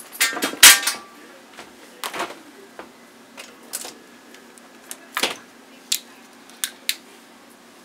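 A series of separate knocks and clicks as things are handled in a kitchen: a loud clatter about half a second in, then sharper single clicks spread over the next few seconds. Near the end a plastic water bottle is handled and its cap twisted open.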